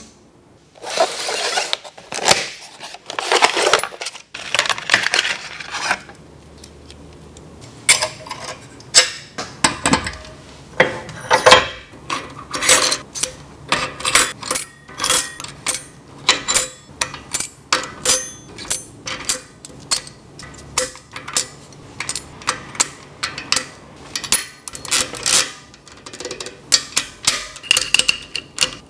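Bicycle cassette sprockets and spacers clinking as they are slid one by one onto the rear hub's freehub body: a long run of sharp metal-on-metal clinks, two or three a second. Before them, for the first few seconds, there is softer scraping from handling the parts.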